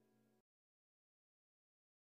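Near silence: the last faint trace of background music dies out within the first half second, then complete digital silence.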